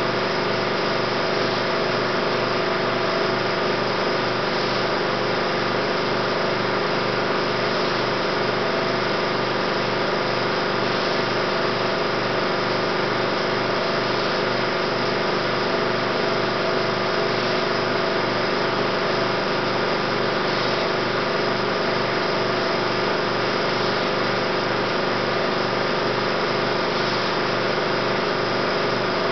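Steady mechanical whir of a 16mm film projector running, unchanging throughout.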